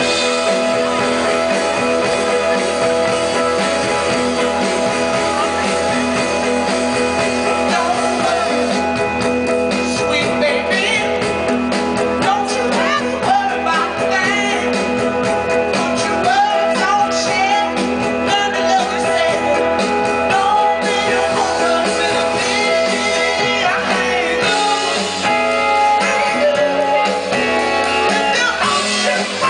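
Live rock band playing with electric guitars, bass and drums; a woman's lead vocal comes in about eight seconds in and carries on over the band.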